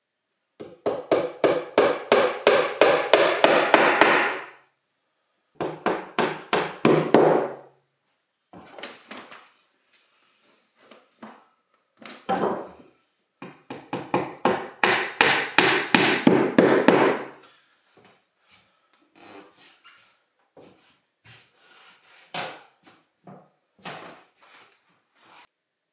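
Staple gun driving staples rapidly through foil-faced insulation into a wooden window frame, about four sharp strikes a second in long runs, then fainter, scattered taps near the end.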